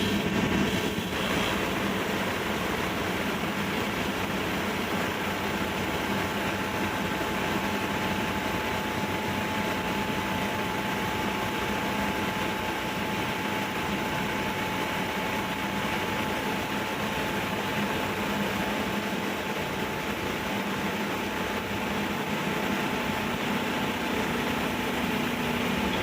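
Plastic-working CNC machine running steadily: an even mechanical noise with a thin, steady whine held throughout.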